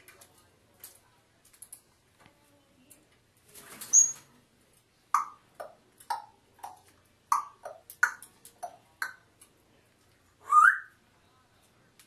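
African grey parrot calling: a loud harsh squawk about four seconds in, then a quick run of short whistled notes in high-low pairs, and a loud rising whistle near the end.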